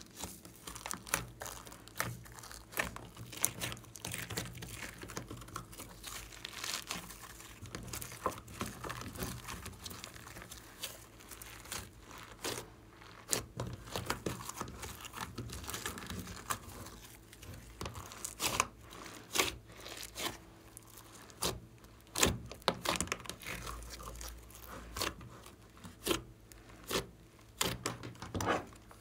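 Hands squishing, stretching and folding glossy slime full of foam beads and glitter, giving irregular sticky pops and crackles several times a second.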